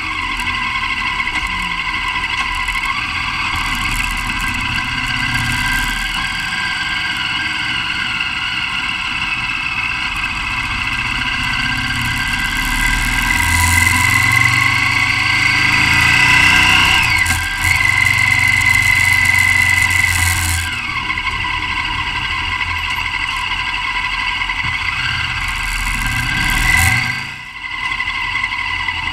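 V-twin motorcycle engine running while riding, heard from a camera mounted on the bike. It grows louder for a stretch in the middle as it pulls, then settles, with a brief dip near the end.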